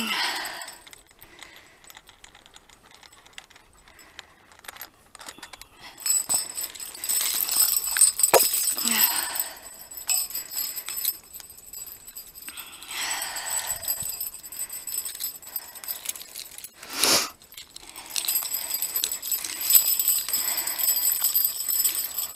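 Metal clips and rings on a dog's harness jingling and clinking as the dog moves, with bouts of rustling and one sharp knock a little past the middle.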